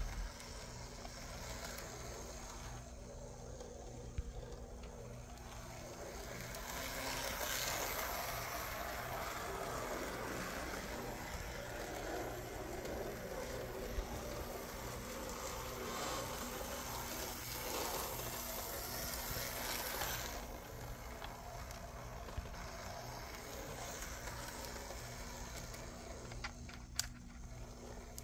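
Märklin Z-scale diesel locomotive running on the track with a short freight train: a steady whir and rattle from its tiny motor and wheels, louder through the middle stretch, with a few sharp clicks.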